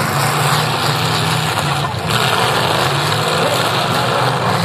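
Several demolition derby cars' engines running together, a loud, steady rumble under a dense roar of noise.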